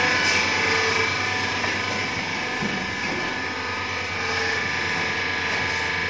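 Cable tray roll forming machine running: a steady mechanical whirr of motor, gears and forming rollers with a low hum and several steady whining tones.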